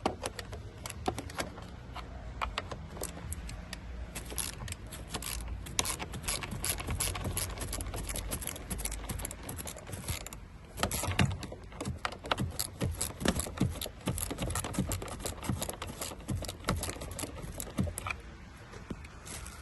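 Ratchet wrench clicking in rapid runs as a 10 mm bolt is undone, with a short pause about halfway through.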